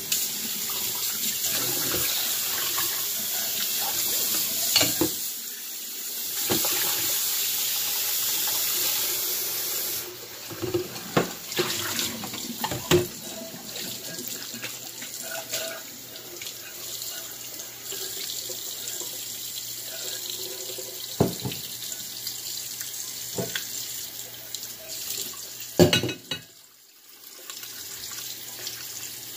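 Kitchen tap running into a stainless steel sink as shrimp are rinsed in a glass bowl: a steady splashing stream, louder for about the first ten seconds and then softer. Now and then the glass bowls knock against the sink as they are handled, and the water sound drops away briefly near the end.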